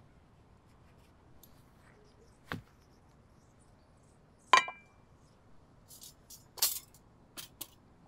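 Scattered sharp clinks and knocks of handled gear: a click about two and a half seconds in, then one loud metallic clink that rings briefly about halfway through, followed by a few quick scrapes and clicks near the end.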